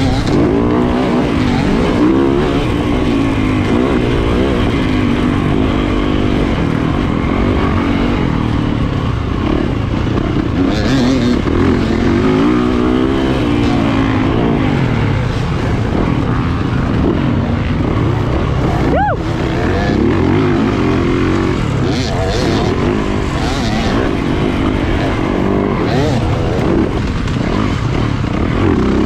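Yamaha 250 two-stroke dirt bike engine ridden hard, its pitch repeatedly rising and dropping as the throttle opens and closes through shifts and corners, with a brief break in the engine note about two-thirds of the way in.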